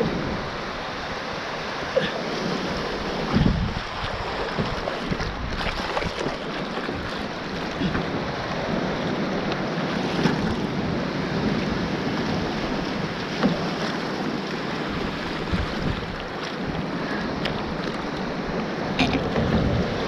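Sea water sloshing around the raft and surf breaking on the reef, with wind buffeting the microphone. A few small knocks stand out now and then.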